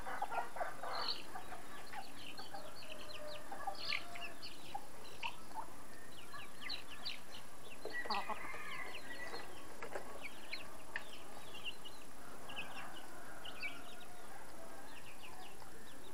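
Chicken flock calling: many chicks peeping in short high chirps throughout, with lower clucks from the adult birds near the start and again about halfway through.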